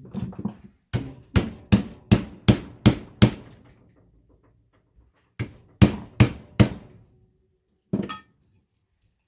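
Hammer blows on the metal casing of a light ballast being broken open for its copper: seven sharp strikes at about three a second, a pause, then four more and a final knock, each with a short metallic ring.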